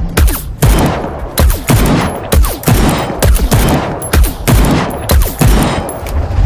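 Series of loud gunshots, fired singly at about two a second with uneven spacing, each shot with a short echoing tail.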